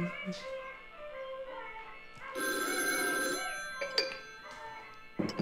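Telephone bell ringing for about a second, starting about two and a half seconds in: an incoming call. Soft background music plays underneath.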